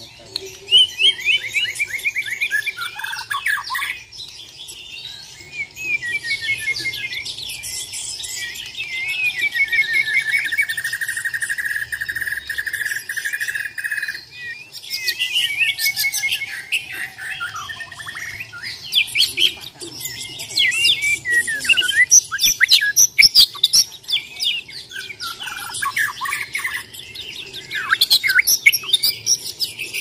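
A white-rumped shama (Bornean murai batu) singing its aggressive fighting song: a varied, unbroken run of clear whistles, quick rattling notes and high chatter, with one long even trill partway through.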